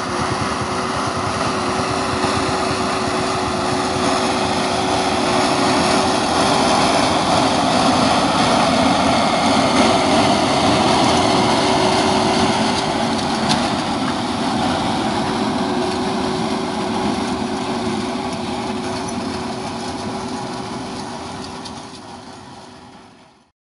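LIAZ ŠT 180 forestry skidder's diesel engine running at work, with a steady whine running through it. The sound grows louder toward the middle and then fades away near the end.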